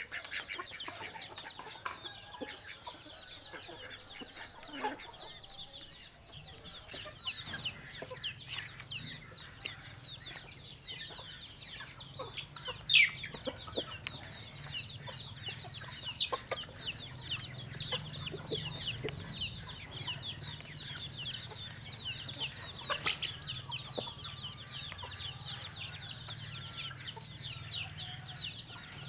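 A flock of chickens calling, with a dense, continuous stream of short high peeps that each drop in pitch, and a few louder sharp calls, the loudest about 13 seconds in.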